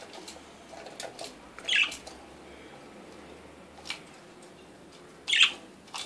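Budgerigar bathing in a clear plastic cage bath and climbing out of it: faint small taps and patters, with two short, loud, bright sounds about two and five seconds in.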